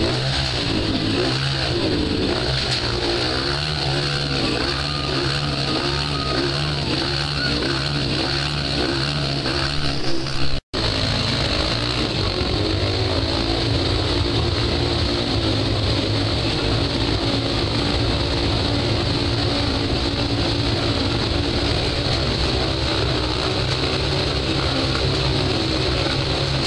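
Several motorcycles riding round inside a steel mesh globe-of-death sphere, their engines revving continuously and overlapping. The sound breaks off for an instant about ten seconds in, then carries on the same.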